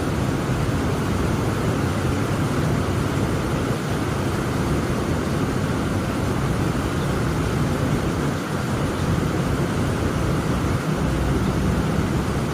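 Heavy rain falling in a dense, steady rush of noise, heaviest in the low range, with no separate drops or claps standing out.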